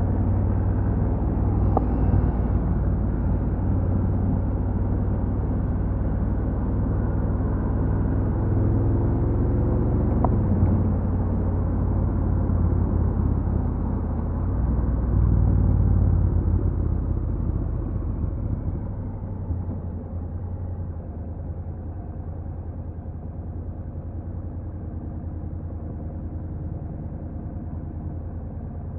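Honda NC750X's parallel-twin engine running with a steady low drone while riding. About two-thirds of the way through the engine note drops and settles quieter, as when the rider eases off.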